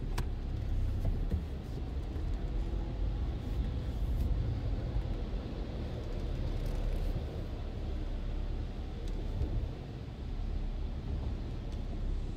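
Low, steady rumble heard inside a car's cabin as the car moves slowly, its engine running, with the machinery of an automatic car wash running ahead.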